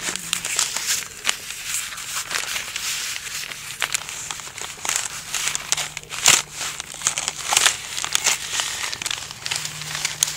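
Irregular crinkling and crackling of stiff paper being handled: the pleated paper element cut from a spin-on oil filter and the newspaper beneath it.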